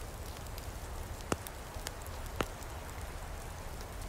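Wood campfire burning with a steady soft hiss and a few sharp crackling pops, the loudest about a second and a half in and again near two and a half seconds.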